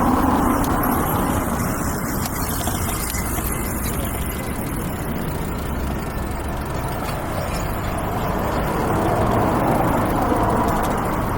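City street traffic: a steady rush of passing cars and trucks, one passing at the start and another swelling past about nine seconds in.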